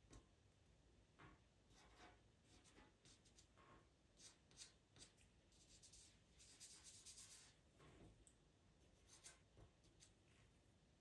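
Faint scratching of a pastel pencil on Pastelmat paper in short, quick strokes, with a longer run of rapid strokes about six and a half seconds in.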